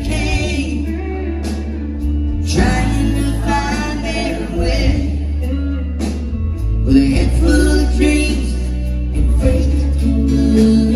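A live country band, with electric bass and drums, playing while a woman sings lead into a microphone.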